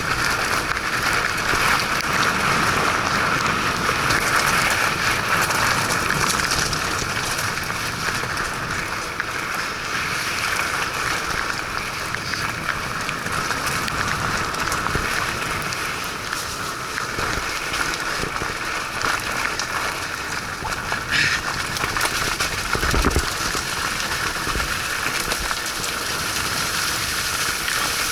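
Steady rain hiss and patter mixed with fat-bike tyres running over a wet, muddy trail, with a single low knock late on.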